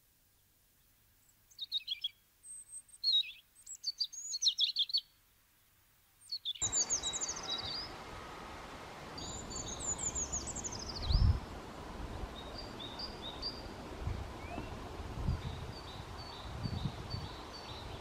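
Treecreeper song: thin, high trills and falling phrases in several short bursts. About six and a half seconds in, the recording changes abruptly to a noisier background with low rumbles, and further high song phrases and short repeated chirps follow.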